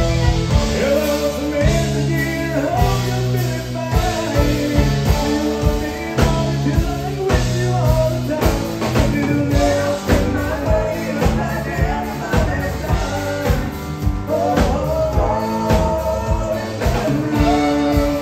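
Live country band playing a song with a steady beat: a man's lead vocal over acoustic guitar, fiddle, drum kit and electric bass.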